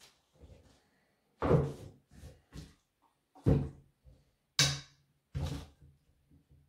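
A Husqvarna chainsaw being handled and set against the table: a series of short thuds and knocks. The loudest come about one and a half, three and a half, four and a half and five and a half seconds in, with a few lighter knocks between them.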